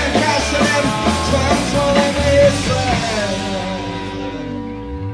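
Live rock band playing the end of a song. About halfway through, the drums stop and a final chord rings out and slowly fades.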